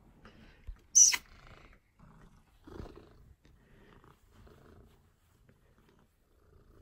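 Domestic cat purring faintly while being stroked. About a second in there is a single brief, sharp noise, the loudest moment, and a smaller soft bump near three seconds.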